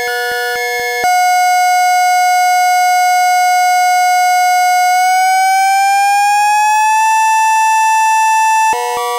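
Amiga tracker music: one long held, buzzy electronic tone that slides smoothly up in pitch about two thirds of the way through and then holds. Rapid, evenly pulsed chip-style note patterns play at the start and return near the end.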